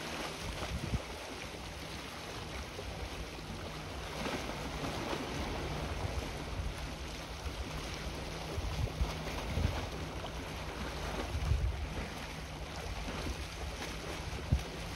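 Wind gusting on a handheld phone's microphone over the steady wash of the sea, with a faint low hum through much of it.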